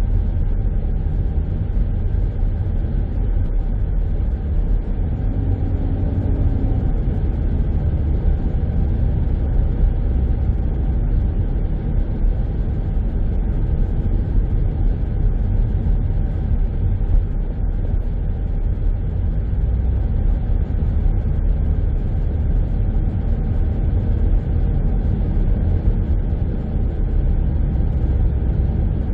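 Steady low rumble of a car driving at road speed: engine and tyre noise, even throughout.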